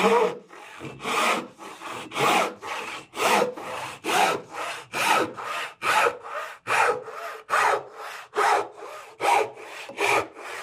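Handmade Chinese frame saw ripping a board along the grain, its blade rasping through the wood in steady back-and-forth strokes, a louder stroke about once a second.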